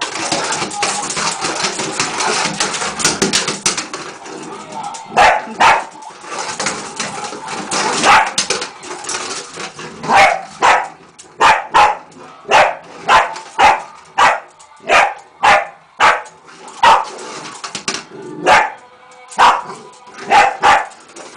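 Dachshund barking over and over in a bathtub: short, sharp barks that come about one or two a second through the second half, after a few seconds of continuous noisy rush at the start.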